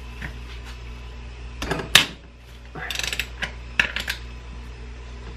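Ratchet wrench clicking in short bursts as the cylinder-one camshaft bearing cap bolts are backed out a quarter turn at a time on a BMW M50 cylinder head, the loudest click about two seconds in, over a low steady hum.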